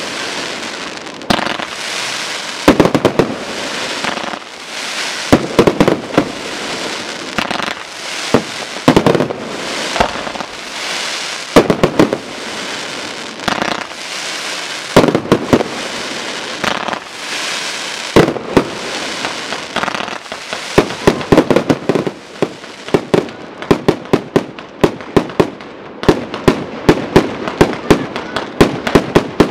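Fireworks display: aerial shells bursting in sharp bangs every second or two, with crackling between them. From about two-thirds of the way in, the bangs come fast, several a second.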